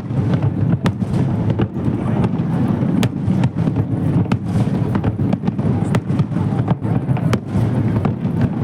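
Fireworks display: a continuous low rumble of shell bursts with many sharp cracks scattered through it.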